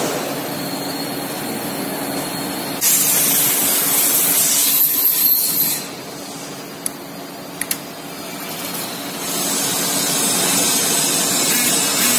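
Compressed air hissing from the air supply of a pneumatic globe control valve's positioner and filter regulator, over a steady hum. A loud hiss of about three seconds drops away, a few sharp clicks follow, and the hiss comes back in the last few seconds.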